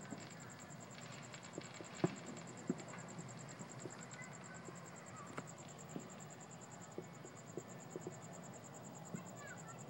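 Distant fireworks and firecrackers popping irregularly across the neighbourhood, one sharper bang about two seconds in, over a cricket chirping steadily in a fast, high trill.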